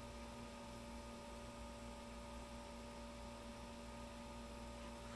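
Faint steady electrical mains hum with a few pure tones held level; the puff on the e-cigar and the exhale make no audible sound.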